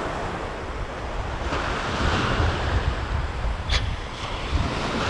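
Small waves breaking and washing up a sandy beach, with wind buffeting the microphone as a low rumble. A wave swells up in a hiss about a second and a half in, and a single brief click sounds near the end.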